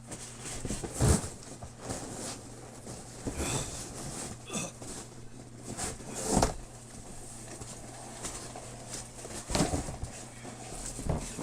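Styrofoam packing peanuts and a cardboard box rustling and crackling as they are dug through by hand, with a few sharper knocks. A low electrical hum runs underneath.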